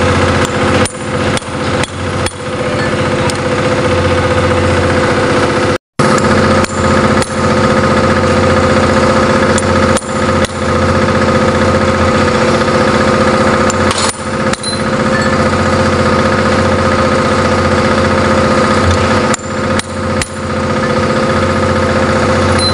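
Hammer striking a punch against a steel forklift-engine connecting rod to stamp identification marks, sharp metal taps in small clusters of two to four. Under it, an engine runs steadily throughout.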